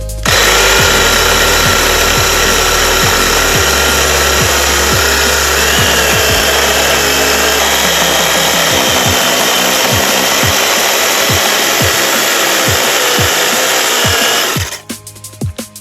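Shindaiwa Pecker A10 electric chainsaw running steadily as its freshly sharpened chain cuts through wood. The sound stops abruptly near the end.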